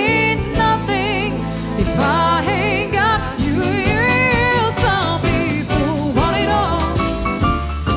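Live cover band music: a woman sings long held, wavering vocal runs with heavy vibrato over the band's keyboard-led backing.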